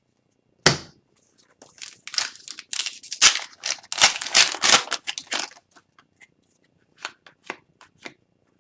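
A hockey card pack is torn open with its wrapper crinkling and rustling for a few seconds after a sharp click. A few light card flicks follow near the end.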